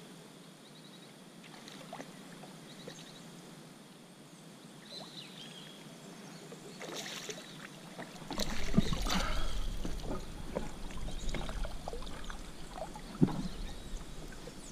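A hooked piapara thrashing and splashing at the water's surface beside a fishing kayak as it is brought to the landing net, with knocks from handling the net and gear and one sharp knock near the end. Before that, a few seconds of faint bird chirps over quiet water.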